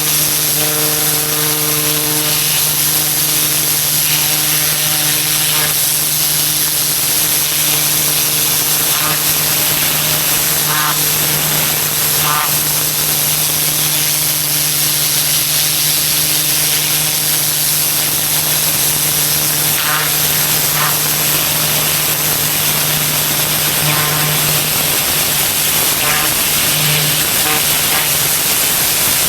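Pressure washer at work: the steady hum of its engine-driven pump under the loud, even hiss of a high-pressure water spray on pavement.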